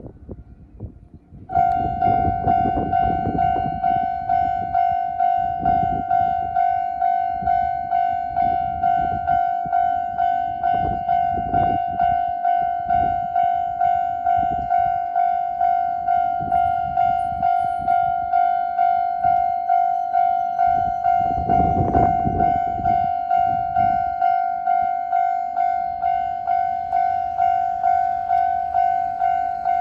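Japanese railway level crossing's electronic warning bell starts ringing about a second and a half in, then repeats a single ding about twice a second in an even rhythm. It is the standard crossing alarm, warning that a train is approaching.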